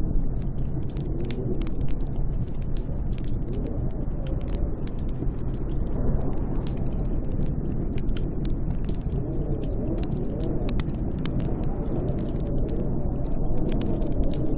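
Snowstorm wind blowing steadily with a deep rumble and a wavering, moaning howl that swells and fades, with frequent small sharp crackles and clicks scattered throughout.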